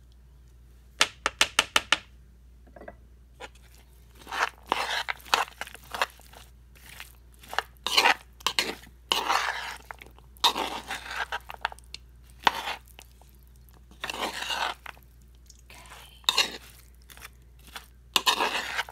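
A metal spoon stirring and folding mayonnaise-dressed chicken salad with chopped celery, onion, grapes and pecans in a wooden bowl. About a second in there is a quick run of sharp taps. After that come irregular wet stirring strokes as the chunks scrape through the dressing against the bowl.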